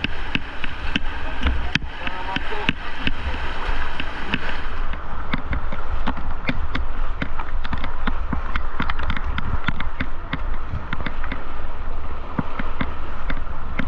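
River water rushing and splashing around a paddled boat in high water, with frequent sharp splashes and knocks all through and a steady low rumble on the microphone.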